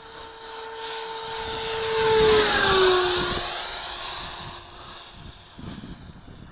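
Electric ducted fan of an HSD Hobby J-10 RC jet (105 mm fan, 8S motor) passing by: a whine that builds to its loudest about two and a half seconds in, drops in pitch as it goes past, and fades away.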